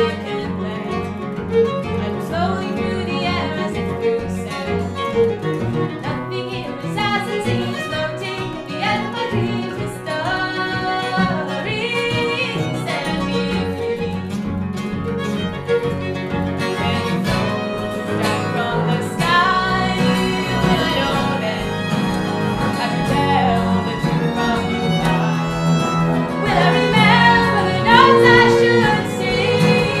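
Acoustic string band playing: fiddle over upright bass and strummed acoustic guitar, with a woman singing. It gets a little louder in the last few seconds.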